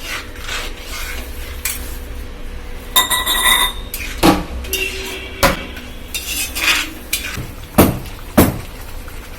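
Metal kitchen utensils knocking, scraping and clinking against a cooking pot, with a ringing metallic clang about three seconds in and two sharp knocks near the end.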